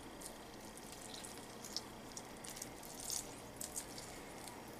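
Faint, scattered drips and light ticks of lime juice being squeezed from a lime wedge onto a plate of nachos.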